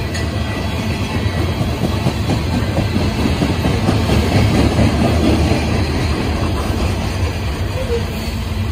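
CSX open-top coal cars rolling past: a steady rumble and clatter of steel wheels on the rail, loudest about halfway through.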